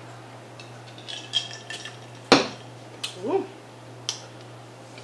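A drinking glass set down on a wooden table with one sharp knock, after a few small clicks and crackles. Then come lighter clicks as crisp fried nuggets are picked from a serving tray, and a brief rising hum from a voice.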